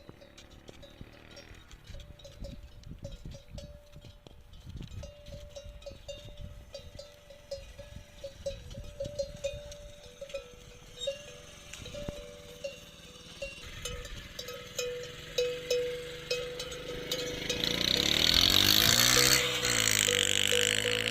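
A camel's neck bell clanking over and over with a ringing tone. About seventeen seconds in, a camel's loud grumbling call, wavering in pitch, takes over.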